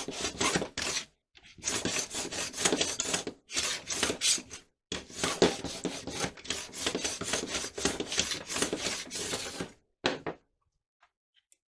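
Rapid back-and-forth hand rubbing strokes, abrasive work removing excess glue. The strokes come in several runs with brief pauses and stop shortly before the end.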